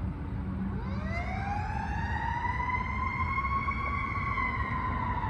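Fire truck siren wailing: one long tone that rises from low about a second in, climbs slowly and levels off high, easing down a little near the end.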